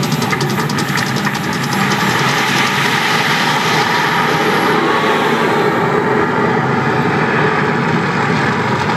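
Mirage volcano attraction erupting: a loud, steady rumbling roar.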